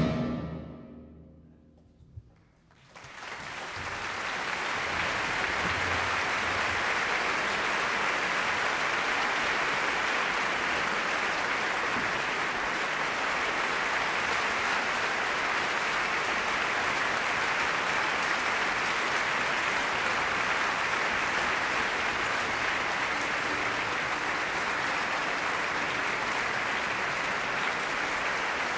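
The final chord of the orchestra and harp dies away over about two seconds, then a short hush with a single click. An audience then breaks into steady applause about three seconds in.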